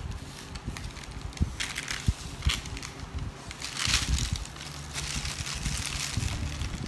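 Sugar rustling and crunching as it is poured from a plastic bag into a bowl and worked by hand, with crinkling of the bag, in irregular gritty bursts.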